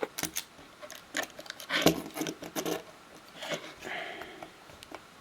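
Light, separate clicks and taps of a small tool and parts against the opened iPhone's internals as its battery connector is worked loose.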